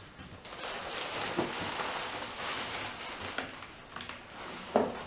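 Crumpled brown packing paper and cardboard inserts rustling and scraping as a delivery box is unpacked by hand, with a single sharp knock near the end.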